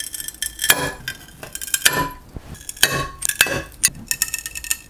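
Porcelain pieces clinking and knocking together: an irregular string of sharp clinks, several of them ringing briefly.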